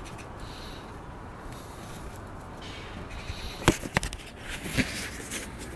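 Wind on the camera's microphone, a steady low rumble, with a few sharp knocks and rubbing about two-thirds through as the handheld camera is handled against clothing.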